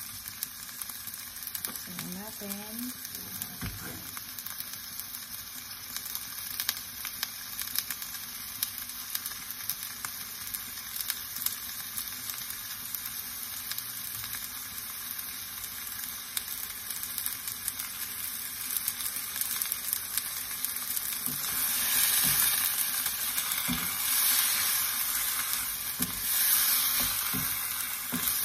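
Cubes of pork neck sizzling in hot oil in a non-stick wok as they brown with garlic and onion: a steady hiss with scattered small pops. From about three quarters of the way through, the sizzle gets louder as a wooden spatula stirs the meat.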